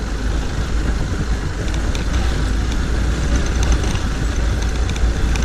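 Motorcycle engine running steadily while riding over a rough dirt track, mixed with heavy wind rumble on the camera microphone.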